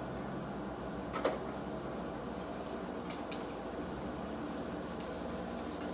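Steady indoor room hum with one sharp knock about a second in and a few faint clicks around three seconds in.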